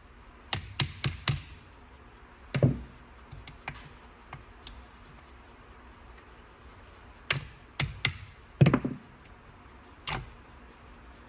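Scattered sharp metal clinks and knocks of a mallet and tools on an upturned A-Series engine block as the rear main bearing cap is worked loose: a quick run of clicks at the start, a duller thump, light taps, then a louder group of knocks.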